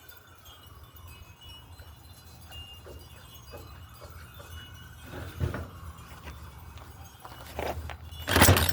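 Small two-stroke chainsaw being readied to start: soft clicks from its primer bulb being pressed, then a hard pull on the recoil starter rope near the end.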